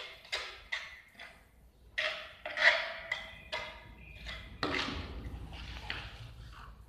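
Steel trowel scraping and clinking against a tile and a mortar pan as mortar is scooped and spread onto the back of the tile: a quick, uneven series of sharp scrapes and knocks with a slight ring, the loudest about two and a half seconds in.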